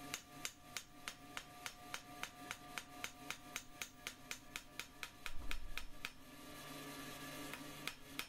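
Quick mallet blows on thin hot steel lying on an anvil, about three a second, spreading and thinning the edge of a knife blank. A low thump comes about five and a half seconds in, then a steady hum for about two seconds before the blows start again near the end.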